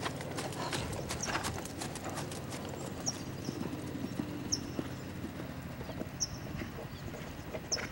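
Lusitano stallion's hoofbeats on sand arena footing under a rider: a steady run of soft hoof strikes, thickest in the first couple of seconds.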